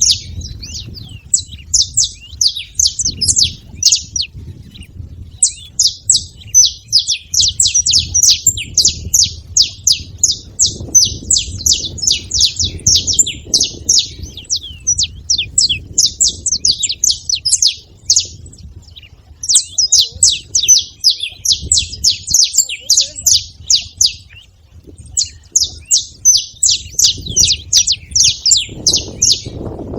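Saffron finch chirping in fast runs of sharp, high notes, in long bouts broken by short pauses.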